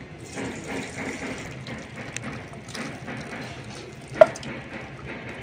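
Thick curry of cauliflower, potatoes and prawns sloshing and sliding out of a metal kadai into a steel bowl. A single sharp metallic clink rings out about four seconds in.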